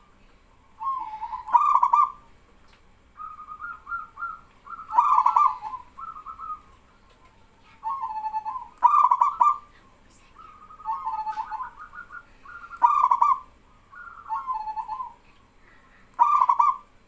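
Zebra doves (perkutut) cooing, a short rolling, chuckling coo phrase about every two seconds. Phrases at slightly different pitches alternate, as birds answer one another.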